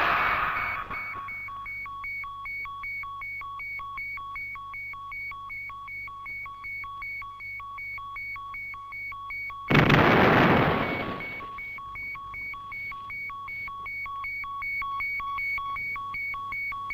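Ultraman's colour timer warning: a rapid, steady electronic beeping at one pitch. A loud crash like an explosion cuts in about ten seconds in and fades over a second or so, and another crash is dying away at the start.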